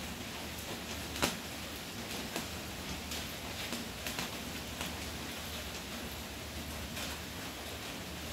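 Scattered light taps and rustles as a cat paws and pushes at an umbrella's fabric canopy and handle, over a steady hiss. The sharpest tap comes about a second in.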